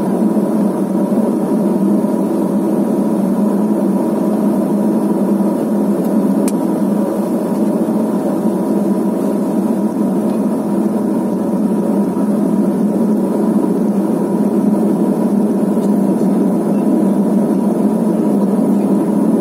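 Let L-410 UVP-E20 turboprop engine and propeller heard from inside the cabin while taxiing at low power: a steady, loud drone with a strong low hum.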